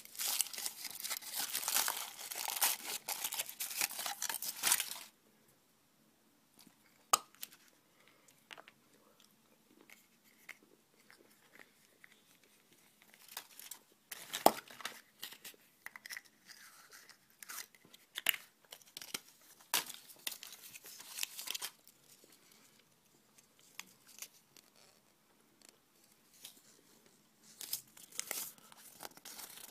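Crinkling, tearing rustle of hands handling toy packaging and modelling dough for about five seconds, then scattered sharp clicks and short rustles of small plastic pieces being handled.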